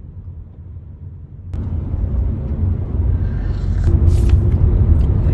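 Low, steady road and engine rumble heard inside a car's cabin on a highway. It steps up louder about a second and a half in.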